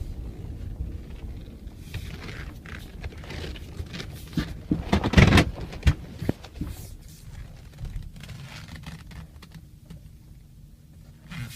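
Ford 6.0L Power Stroke V8 turbodiesel running with an uneven idle and irregular knocks and clatter, loudest about five seconds in: the rough, stumbling idle of a hot engine with a running fault.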